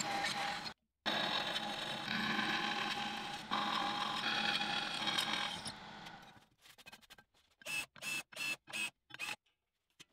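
Electric drill running with a twist bit cutting through a steel plate: a steady cutting noise with a thin whine, broken off for a moment about a second in. After about six seconds it fades into a run of short separate bursts, then stops.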